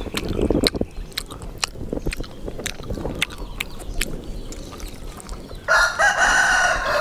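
Wet clicks and smacking of someone chewing meat off a boiled beef bone. About five and a half seconds in, a rooster crows loudly in one long call that falls in pitch at its end.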